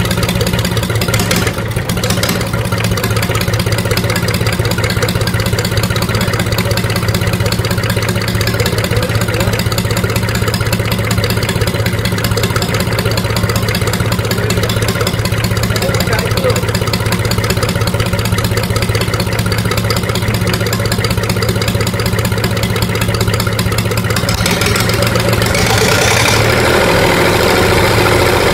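Mitsubishi L3E three-cylinder diesel engine running steadily at idle on the bench during a tune-up. Its sound grows a little louder and brighter near the end.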